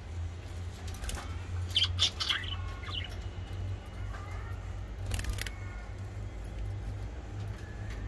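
Budgerigars chirping in short calls, a quick cluster about two seconds in and fainter ones after, with a brief noisy burst about five seconds in, over a steady low hum.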